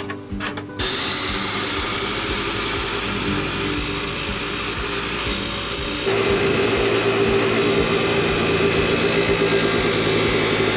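DeWalt D28715 14-inch abrasive chop saw. Its 15-amp motor starts suddenly about a second in and runs at a steady high whine. About six seconds in, the abrasive cutoff wheel bites into a flat metal bar, and the sound grows louder and rougher as it grinds through.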